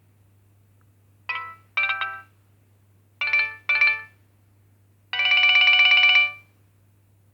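Nokia 2610 mobile phone ringtone playing through the phone's small speaker. It is a synthesized tune in short phrases: two quick notes, a pause, two more, then a longer warbling note about five seconds in. A low steady hum runs underneath.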